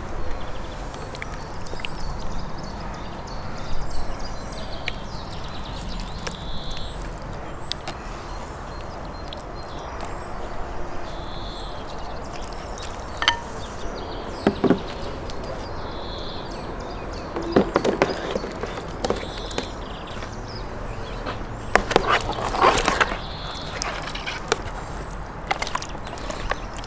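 Pieces of marinated catfish and a plastic tub being handled: scattered knocks and clatters of plastic and wet fish, loudest in two short clusters in the second half, over steady outdoor background noise.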